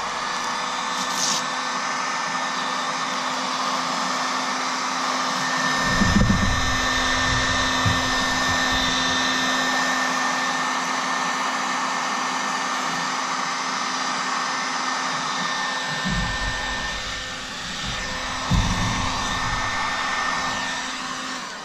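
Harbor Freight 1500-watt heat gun blowing steadily, a hot-air rush with a steady motor whine, switched off at the very end. A few low bumps of handling come about six seconds in and again near the end.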